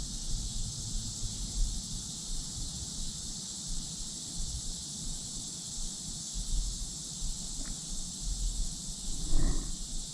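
Steady high-pitched insect chorus buzzing without a break, with wind rumbling on the microphone. A brief louder sound comes near the end.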